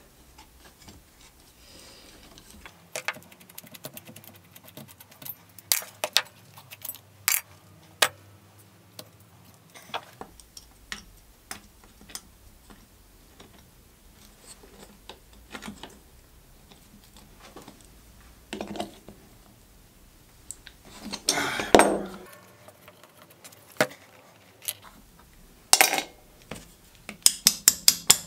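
Rusty steel fittings of an old wooden fillister plane clinking and scraping as they are worked loose with pliers. Scattered sharp taps and clicks, a longer scrape a little past the middle, and a quick run of clicks near the end.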